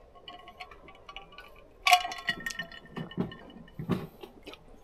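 Ice clinking in a glass of shochu on the rocks: one sharp, ringing clink about two seconds in, among faint small ticks, with a few softer low sounds after it.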